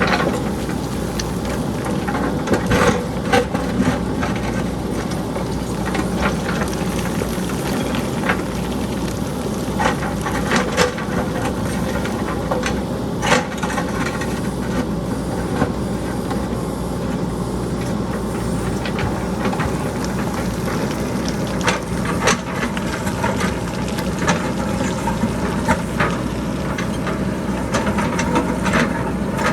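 JCB backhoe loader's diesel engine running steadily while boulders and pebbles tumble down the hillside, with irregular sharp clattering knocks of rock on rock scattered throughout.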